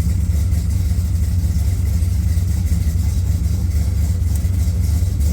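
Car engine idling steadily while in gear, holding its idle without stalling.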